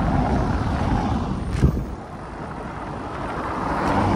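Wind rumbling on the microphone of a road cyclist riding on a highway, with a single sharp knock about one and a half seconds in. The rumble drops after about two seconds, and road noise then swells near the end.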